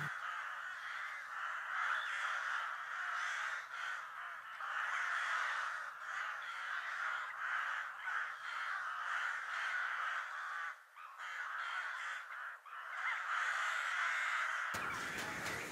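Crows cawing, a continuous chorus of many calls. Near the end a fuller, deeper background sound comes in under them.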